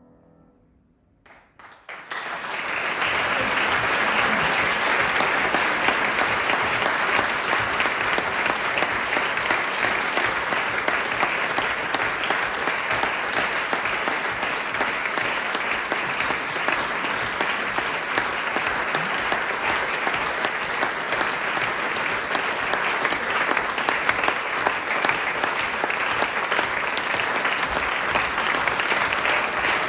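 Theatre audience applauding at the curtain call. After a short hush the clapping breaks out about two seconds in and then keeps up steadily.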